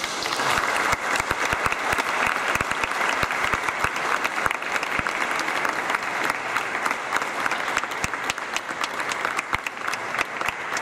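Audience applause: many hands clapping, breaking out suddenly and keeping up as a steady, dense clatter.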